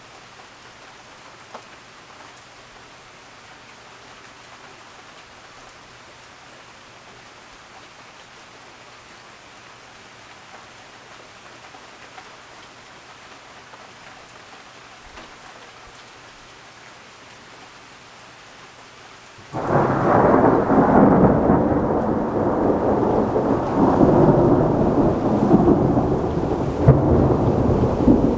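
Steady rain hissing, then about two-thirds of the way in thunder breaks suddenly and loudly and keeps rumbling.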